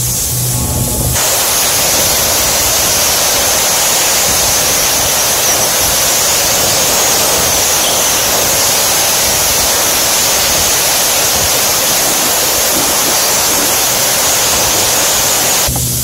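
Compressed nitrogen rushing out of a line in a loud, steady hiss. It comes up to full strength about a second in and cuts off just before the end.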